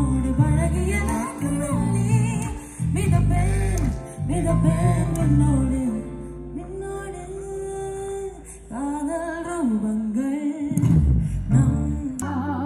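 A woman singing live with a band: a melodic vocal line with long held notes over electric bass guitar, keyboard and drums.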